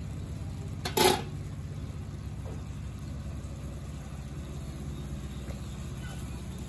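A single sharp metallic clatter about a second in, a utensil knocking against the cooking pan, over a steady low hum.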